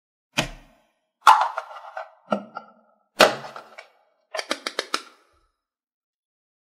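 Red slime being squeezed and pulled, giving four short, sharp squishing pops about a second apart. Then comes a quick run of about seven small plastic clicks as a Play-Doh Slime tub and its lid are handled.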